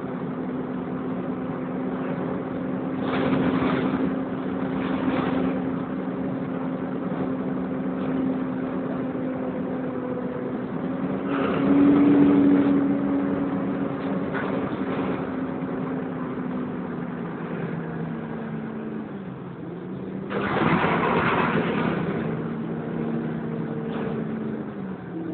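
Volvo B10BLE single-deck bus heard from inside, its diesel engine running with a steady hum that drops slightly in pitch near the end. Several short rushing surges of noise come over it, the longest and loudest about two-thirds of the way through.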